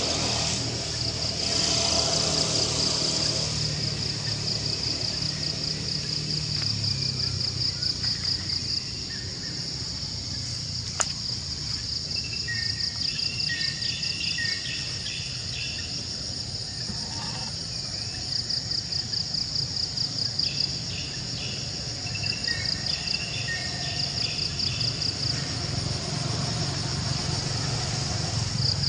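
Insects calling in a steady, rapidly pulsing high-pitched chorus, with scattered groups of short lower chirps and a single sharp click about eleven seconds in.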